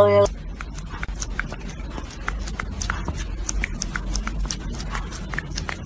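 A sung note cuts off just after the start. Then comes close rustling and crackling made of many small rapid clicks, with short faint high squeaks scattered through it.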